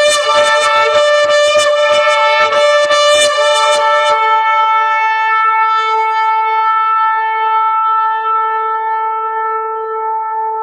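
A shofar (ram's horn) being blown: a fast run of short pulsed blasts, about four a second, then about four seconds in it settles into one long, steady held note.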